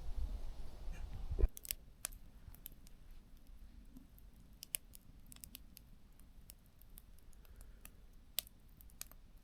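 Campfire crackling: sparse, irregular, faint sharp pops and ticks. The first second and a half holds a low rumble that cuts off abruptly.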